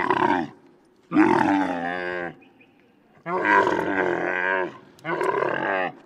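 Camel calling: four long groaning calls of about a second each, with a wavering pitch and short pauses between them.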